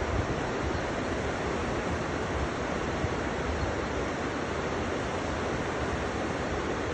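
River water flowing, a steady, unbroken wash of noise with no let-up.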